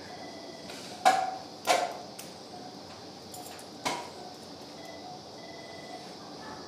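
Steel surgical instruments clicking and clinking during skin suturing: three sharp metallic clicks, about one second, a little under two seconds and about four seconds in, the first two ringing briefly, over a faint steady hiss.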